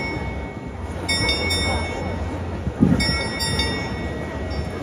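Crowd murmuring while the Prague astronomical clock's bell rings twice during the hourly apostle show, each ring starting sharply and fading within a second.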